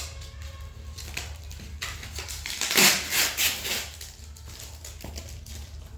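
Rustling and handling noise as a flared subwoofer port in its packaging is handled, loudest about three seconds in, over a steady low hum.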